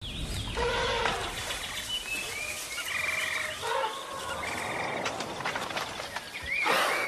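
Forest ambience of birds calling: short chirps and whistling calls that slide up and down in pitch, with a brief rushing noise near the end.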